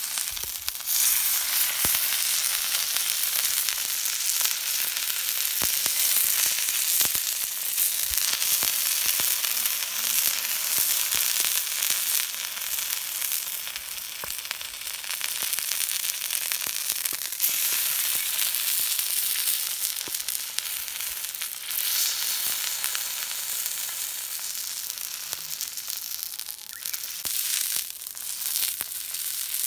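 Thick ribeye steak sizzling on a hot homemade thick iron griddle over a wood fire: a continuous hiss with frequent small pops and crackles.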